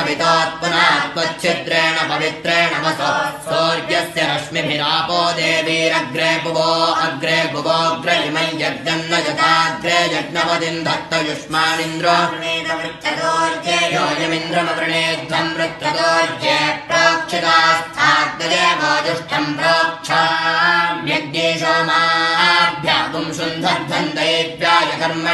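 Two boys chanting Vedic Sanskrit mantras together, a continuous recitation held on a few closely spaced notes.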